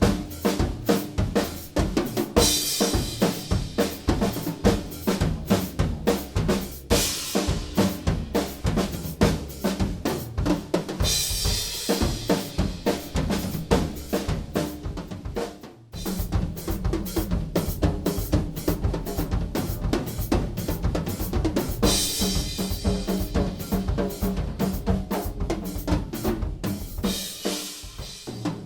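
Yamaha Recording Custom drum kit being played in a steady groove of kick, snare and hi-hat, with crash cymbal hits every four to five seconds. The playing breaks off for a moment about halfway through, then picks up again.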